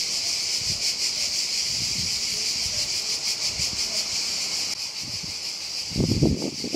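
Cicadas buzzing in a steady, high-pitched chorus with a fast shimmering pulse. Near the end come a few short bursts of low rumble.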